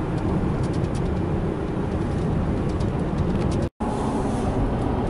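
Road and engine noise inside a moving car: a steady low rumble with faint irregular ticks, broken by a short dropout about three and a half seconds in.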